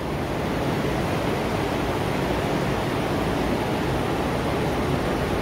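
A steady, even rushing noise of moving air, with no distinct events in it.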